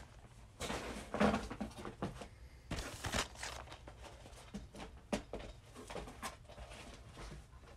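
Plastic Blu-ray and DVD cases being handled and packed into a box: scattered clicks and knocks of cases against each other, with louder rustling about a second in and again about three seconds in.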